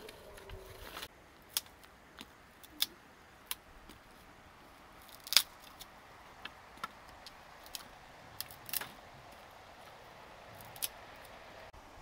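Dry sticks and twigs clicking and knocking against each other as they are handled and poked into the ashes of a fire pit: a scatter of sharp, separate clicks, the loudest about five seconds in.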